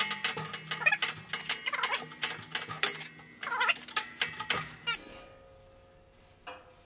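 Hand-pumped 12-ton hydraulic shop press bending quarter-inch steel plate under load, with a quick run of clicks and high squeaks from the press and straining plate. It stops about five seconds in. The plate is being pushed past the wanted angle to allow for springback.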